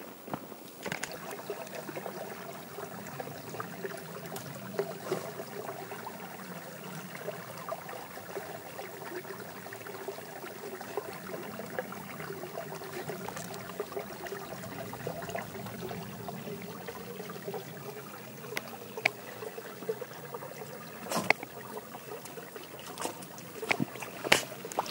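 Water trickling steadily, as a small forest stream flows, with a few sharp clicks near the end.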